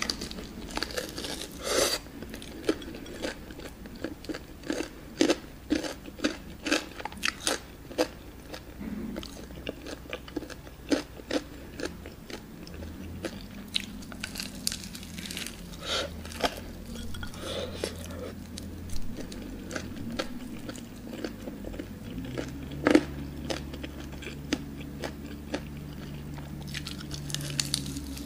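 Close-miked biting and chewing of crunchy cheddar-crusted fried chicken drumsticks: many short crisp crunches, one after another. A low steady hum sits under it from about halfway through.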